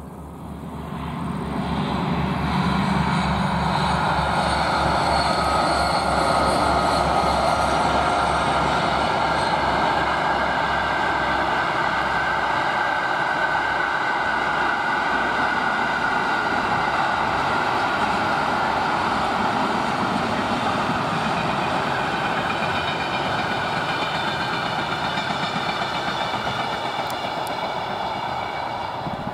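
A heavy diesel-hauled construction train, led by two DB class 218/215 diesel-hydraulic locomotives, passes close by. The locomotives' low pulsing engine rumble swells about two seconds in and then fades. After that the long train of loaded hopper wagons and coaches rolls past with a loud, steady rolling noise and a steady high whine.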